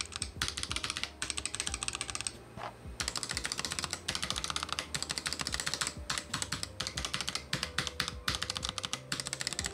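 Fast typing on a Razer Huntsman TE optical keyboard fitted with PBT keycaps: a dense run of key clacks with a brief pause a couple of seconds in, played to show how the keycaps change the keyboard's sound.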